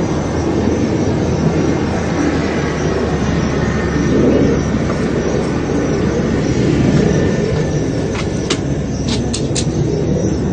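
Jet aircraft flying over at night, a steady low rumble that swells a little and fades again. A few short clicks come near the end.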